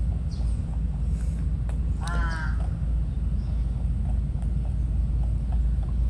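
A steady low outdoor rumble, with a crow cawing once about two seconds in.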